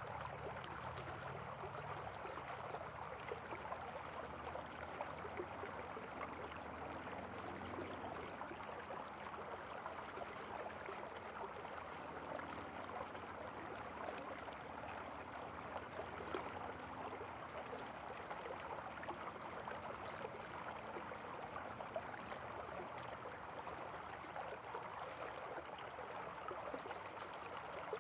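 Faint, steady rush of flowing water, like a stream.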